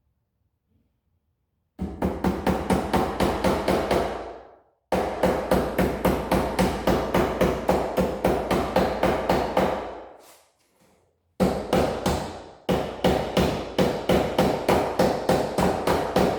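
Hammer tapping a cable staple over Romex cable into the framing, in three runs of rapid, evenly spaced blows that each die away at the end.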